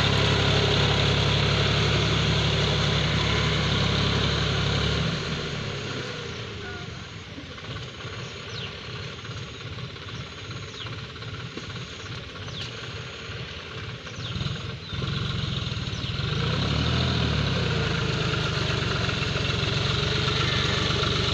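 John Deere 5036D tractor's three-cylinder diesel engine working under load as it drags a cultivator and levelling plank through deep paddy-field mud. It is loud up close, fades about five seconds in as the tractor moves away, and grows loud again after about sixteen seconds as it comes back.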